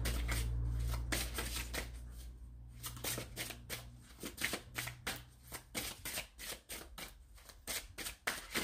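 A deck of divination cards being shuffled by hand: a quick, irregular run of soft card flicks and slaps. A low hum sits beneath it and fades out about halfway through.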